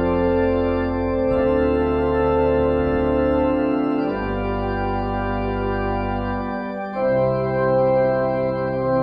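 Organ music: full sustained chords over held deep bass notes, the harmony changing about every three seconds.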